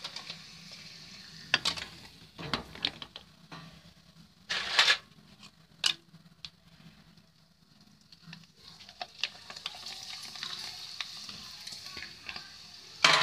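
Rice papad deep-frying in hot oil in a kadhai, sizzling steadily; the sizzle dies down in the middle and picks up again when a fresh papad goes into the oil. A slotted spatula knocks and scrapes against the pan several times, loudest about five seconds in and again near the end.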